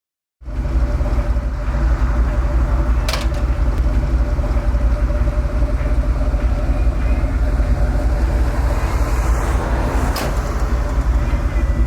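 A vehicle running: a loud, steady low rumble with a faint steady hum, and two brief clicks, about three seconds in and near ten seconds in.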